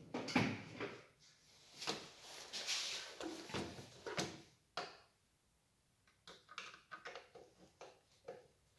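Handling noises of a plastic toy chainsaw: a run of knocks and rustles as it is laid on the wooden bench, then small faint clicks and scrapes as a screwdriver works at its battery cover screw.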